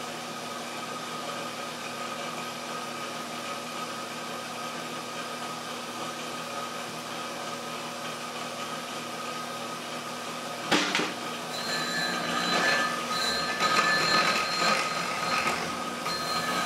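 Treadmill DC motor running steadily, turning a wheel on its shaft with a steady hum and whine. About two-thirds in there is a sharp knock, then louder rubbing and scraping as hard pressure is put on the spinning wheel to try to stall the motor. The motor keeps running under the load.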